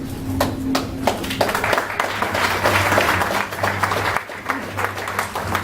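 Audience applauding in a large hall. It begins as a few scattered claps, swells into dense applause, then thins out to separate claps near the end.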